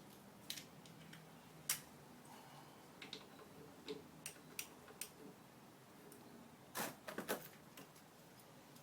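Scattered quiet metallic clicks and clinks of a socket wrench working loose the bolts of a Harley-Davidson Electra Glide's brake caliper, with one sharper click about two seconds in and a short cluster near the end.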